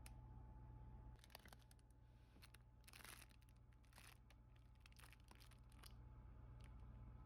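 Near silence with a steady low hum, and faint scattered clicks and short rustles from about a second in until near six seconds.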